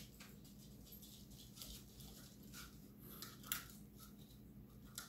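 Near silence: room tone with a steady low hum and a few faint, short clicks, the sharpest about three and a half seconds in.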